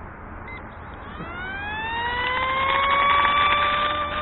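Hubsan F22 RC airplane's electric motor and propeller spinning up on auto-takeoff: a whine that rises in pitch from about a second in, then holds steady and grows louder.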